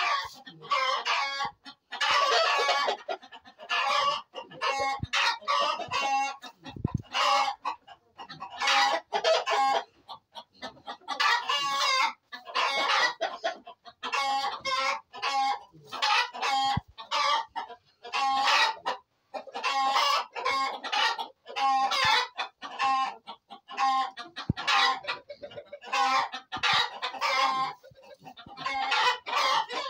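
A flock of chickens clucking and calling over one another in a rapid, near-continuous run of short calls, with roosters crowing among them.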